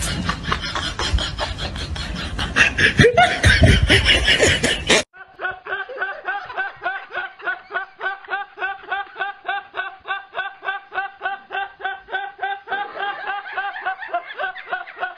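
A noisy, loud mix of sound for the first five seconds, then after a sudden cut a young man's high-pitched laugh. The laugh comes in short, evenly repeating squeaky pulses, about three or four a second, held without a break.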